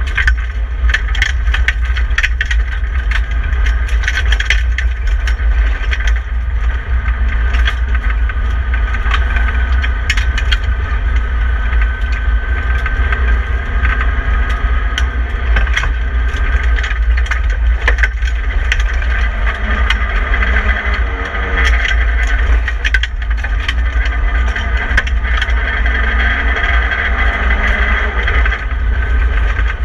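In-cabin sound of a BMW E30 318i rally car's four-cylinder engine running hard on a gravel stage, over a heavy low road rumble. Gravel and stones clatter against the underbody and the bare cabin rattles throughout.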